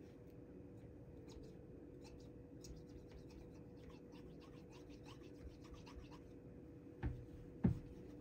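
Faint scratchy scrubbing on the metal of a Colt Frontier Scout .22 revolver as it is being cleaned. Near the end come two knocks, the second louder.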